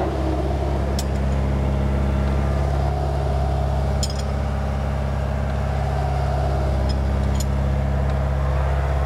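A steady low mechanical drone, with a few light metallic clinks from a combination wrench turning a nut on a steel sway-bar bracket. The clinks come about a second in, at about four seconds, and twice near seven seconds.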